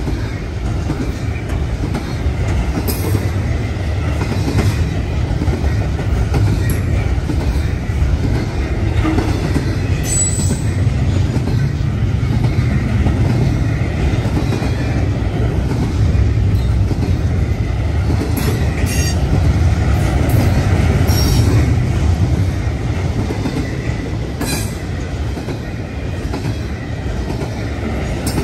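Freight train cars of an intermodal train rolling past: a steady heavy rumble of steel wheels on rail, with a faint high squeal and a few sharp clicks from the wheels and rail joints.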